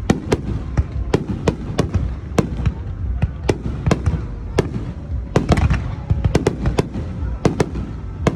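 Aerial fireworks bursting in rapid, irregular succession: many sharp cracks, about two or three a second, over a continuous low rumble from the barrage.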